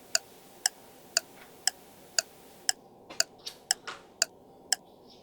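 Clock ticking at a steady two ticks a second, a waiting-for-the-answer sound effect, with a few fainter rustles between the ticks in the second half.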